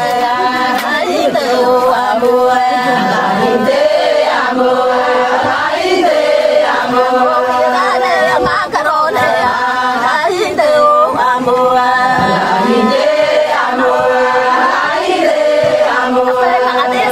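Somali Bantu song: singing voices, with pitch sliding up and down, over a steady held accompanying tone.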